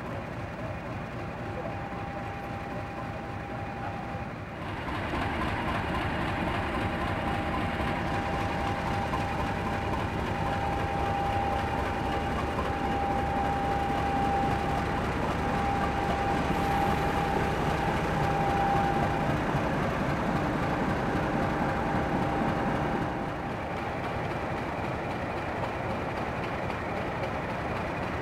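Class 50 diesel locomotive standing with its English Electric 16CSVT V16 diesel engine running steadily, a high steady whine over the engine noise. It grows louder about four seconds in and eases back down a few seconds before the end.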